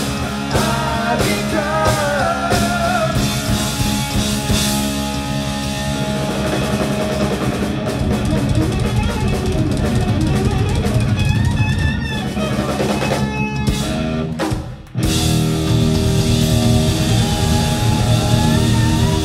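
Rock band playing live through a PA: electric guitar, bass guitar and drum kit. About fifteen seconds in the band cuts off for a split second, then comes back in together.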